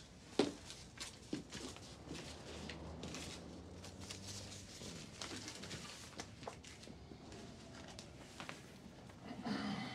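Quiet room with faint rustles and a few soft taps and clicks as people move about.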